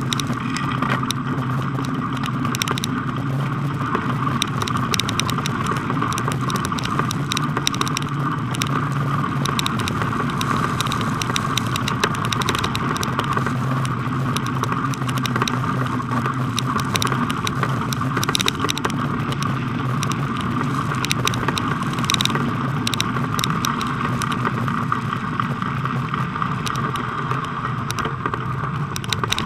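Bicycle rolling over packed snow: a steady tyre noise with frequent light rattles and clicks from the bike.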